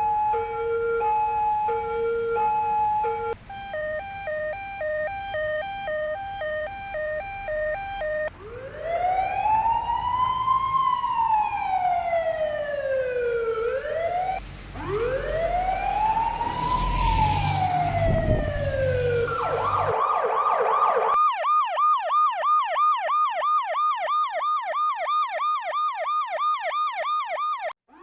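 A series of emergency-vehicle sirens. It opens with a two-tone hi-lo siren stepping between two pitches, then a faster two-tone pattern, then slow wails that rise and fall over about six seconds each, the second with a low rumble beneath it. Near the end it switches to a fast yelp, about three sweeps a second.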